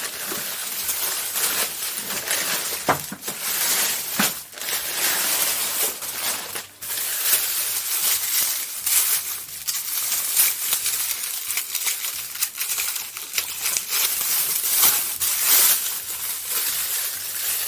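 Thick packaging wrapped around a toy transformation belt crinkling and rustling as it is handled and unwrapped, with frequent sharp crackles and clicks.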